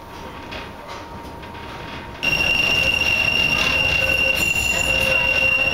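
Historic tram running along the track with a low rumble; about two seconds in it turns abruptly louder and a steady high-pitched wheel squeal sets in and holds.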